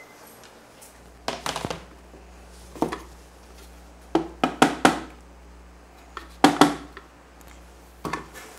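Kitchen handling knocks: a plastic cutting board set down on a stainless steel counter and a blender jar knocked against it while blended spinach is emptied out, in about six short clusters of sharp clatter.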